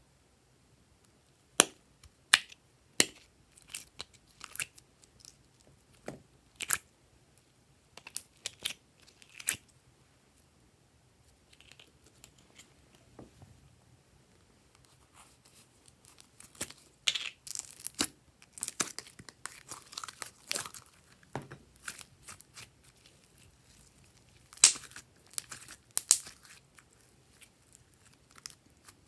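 Glossy slime being worked by hand with mixed-in add-ins: scattered sharp, sticky clicks and pops, a denser run of crackling about two-thirds of the way through, and two loud pops near the end.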